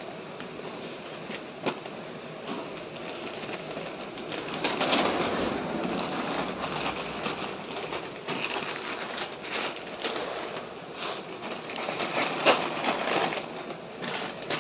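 Sheet of newspaper crinkling and rustling by hand, with plastic noodle packets crackling, as the packets are wrapped in the paper. Full of small sharp crackles, it gets louder about four seconds in.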